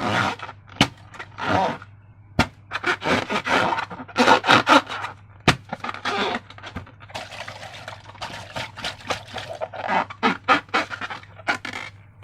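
Slime being worked by hand: an irregular run of wet squishing and crackling sounds, with a few sharp clicks.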